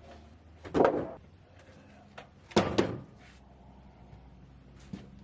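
Heavy wooden thunks, one about a second in and a close pair at about two and a half seconds, over a steady low engine hum, as blocks of cut firewood are dropped or tossed down.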